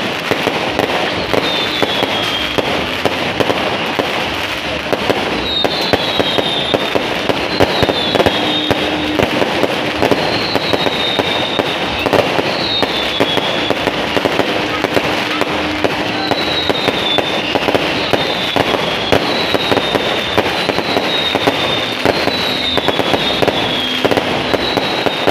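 Fireworks display: a continuous dense crackle of bangs and pops as shells burst, with short whistles falling in pitch recurring every second or two.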